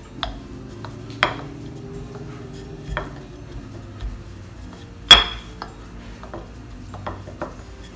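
Wooden rolling pin rolling out a sheet of dough on a floured worktop: a low steady rumble of the rolling, broken by a few sharp knocks and clicks, the loudest about five seconds in.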